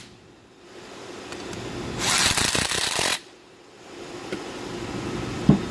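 A burst of compressed-air hiss from a shop air tool, a little over a second long, starting about two seconds in and cutting off suddenly. A short knock of metal parts near the end.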